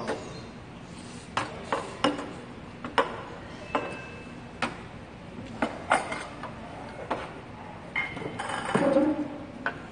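Stainless steel pots, bowls and small side dishes clinking and clattering as they are set down and moved on a table, about ten separate sharp clinks spread irregularly, with a longer, louder clatter near the end.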